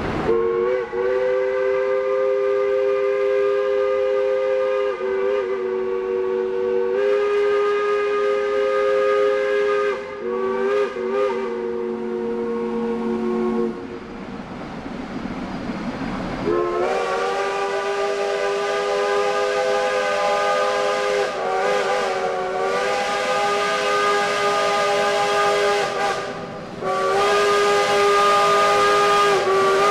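Steam whistles of the Shay geared steam locomotives blowing long blasts, several notes sounding at once. There is a short break in the whistling about halfway through.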